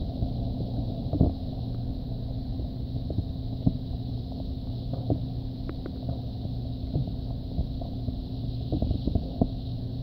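Underwater river ambience picked up by a submerged camera: a steady low rumble of flowing water with scattered small clicks and knocks.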